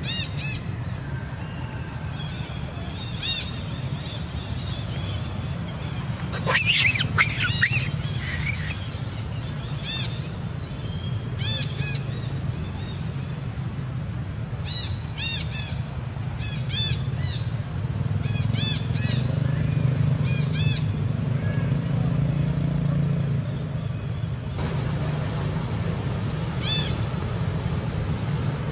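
Baby monkey giving short, high-pitched squeaking cries again and again, with a louder burst of shrieks about seven seconds in, over a steady low rumble.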